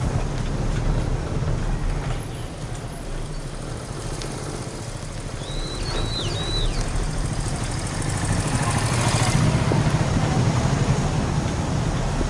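Steady wind rumble on the microphone while moving, with a few short high chirps about six seconds in and a hiss that swells around nine seconds.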